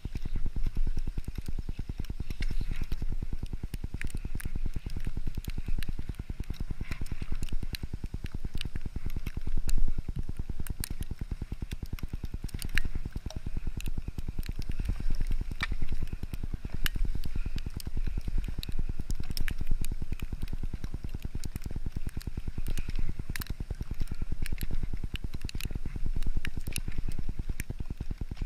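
Skis gliding and scraping over fresh snow, with scattered crackling clicks, over a low, surging rumble of wind on the microphone.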